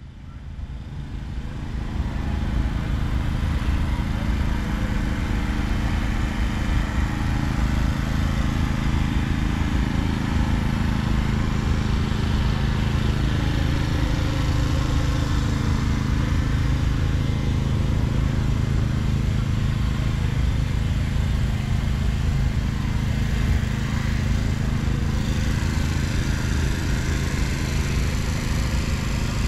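Steady drone of an engine running at a constant speed, fading in over the first two seconds and holding an even pitch throughout.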